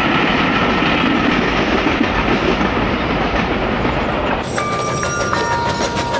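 Train running on rails: a steady, dense rumble of wheels and track. About four and a half seconds in, clicking sets in, along with a few steady high tones that switch pitch in abrupt steps.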